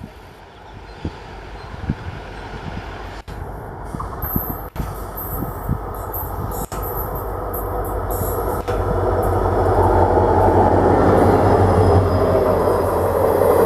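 WDP4D diesel locomotive hauling an express train as it approaches, its engine hum and the rumble of the train growing steadily louder.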